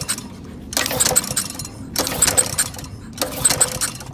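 Recoil pull-starter of a Honda GC190 single-cylinder engine yanked over and over, about four rattling pulls a second or so apart, without the engine catching. The engine will not start after ingesting Orbeez.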